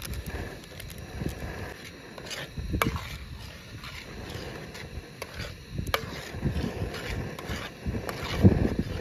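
A steel spoon stirring thick dal in a metal pot, with irregular scrapes and clinks of the spoon against the pot and one louder knock near the end.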